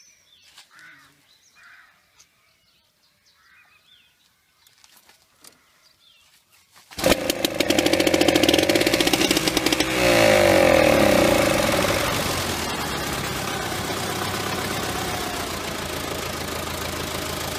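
The small two-stroke petrol starting engine (pony motor) of an old Soviet tractor fires about seven seconds in and runs fast, with rapid crackling firing. About ten seconds in it grows louder and its pitch sweeps, then it settles into a steady run. This is the pony motor that cranks the tractor's main diesel.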